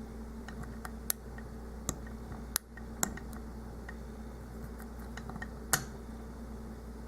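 Irregular small sharp clicks of a lock pick and tension wrench working the pin stack of a Master Lock Pro Series 6835 padlock, about five louder ones among fainter ticks, over a steady low hum. The picker takes the clicking pins for serrated pins.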